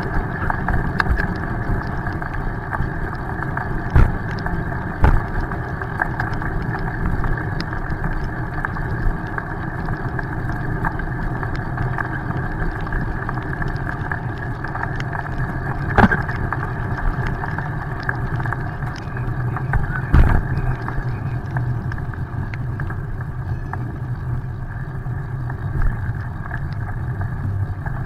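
Steady muffled rumble of wind and tyre noise from a camera riding on a bicycle over wet pavement, with a few sharp knocks from bumps scattered through.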